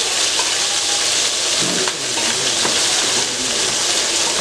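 Snails sizzling in very hot oil, a steady loud hiss as they are sautéed and stirred in the pan.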